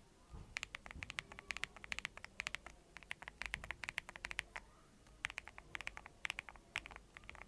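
Typing on a stock Noir Skyline mechanical keyboard: quick runs of key clacks broken by short pauses.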